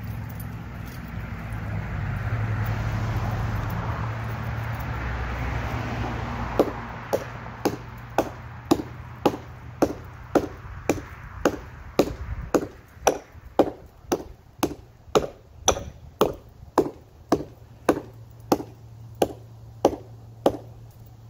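Hatchet chopping into a fallen tree branch. Sharp, regular strikes at about two a second begin about six seconds in and keep on steadily.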